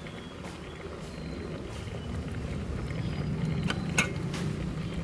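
Pot of shellfish boiling in coconut milk on a portable stove: a steady low rumble of bubbling and burner, a little louder after about two seconds, with two sharp clicks near the end.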